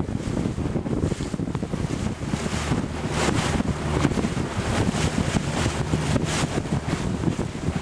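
Wind buffeting the microphone aboard a small motorboat, over the low steady hum of the boat's engine. The wind comes in irregular gusts.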